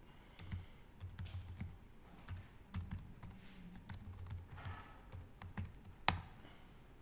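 Computer keyboard typing: a run of irregular, fairly faint keystrokes as a user name and then a password are typed, with one sharper, louder keypress about six seconds in.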